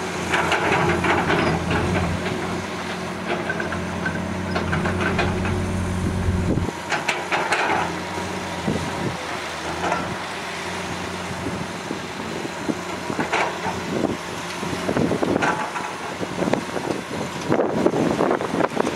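Dump truck engine running with a steady drone while the hydraulic tipper raises the loaded bed; about a third of the way through the drone stops abruptly, leaving a rougher rattling noise with scattered knocks as the sand begins to slide out of the tilted bed.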